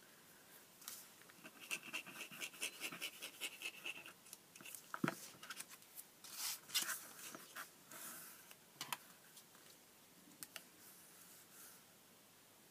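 Faint handling sounds of cardstock and a liquid glue squeeze bottle. A thin squeaky hiss runs for about two seconds near the start as glue is squeezed onto the paper tabs, then comes a single knock about five seconds in. Scattered rustles and light taps follow as the paper is handled and pressed down.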